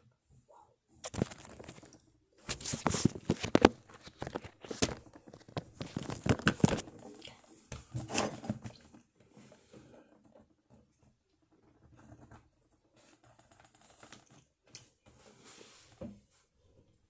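Irregular bursts of rustling and scraping close to the microphone for the first eight or nine seconds, then only faint scattered rustles, with one short louder one near the end.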